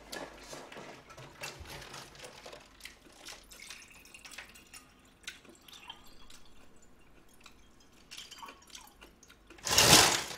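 Water poured from a plastic bottle into a stemmed wine glass. Faint clicks and crinkles of the bottle being handled come first; the pour is a loud rush for about half a second near the end.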